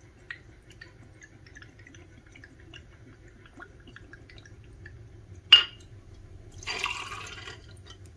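White rum trickling in a thin stream from a bottle into a stainless steel jigger, faint and patchy. About five and a half seconds in comes a single sharp clink, then a short splash as the measure is tipped over crushed ice in the glass.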